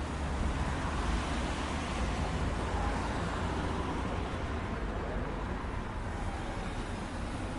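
City street traffic noise: a steady low rumble of passing vehicles, swelling a little in the first few seconds and easing off later.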